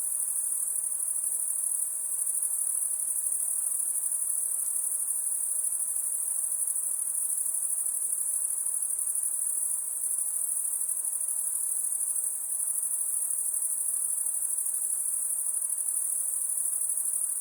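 High-pitched insect song, a steady, unbroken shrill trill.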